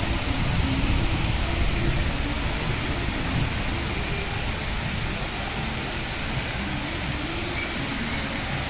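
Fountain water jets splashing and pouring into the basin: a steady, even rush of falling water, with faint voices beneath it.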